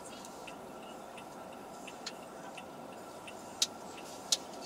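A few sharp, irregular clicks over a steady background hiss, the loudest three about two, three and a half and four seconds in.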